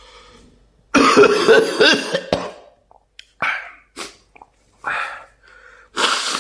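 A man with a head cold coughing: a long hacking bout about a second in, then four single coughs roughly a second apart.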